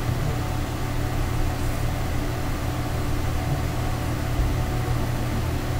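Steady background noise: a low hum with an even hiss over it, unchanging, with no distinct events.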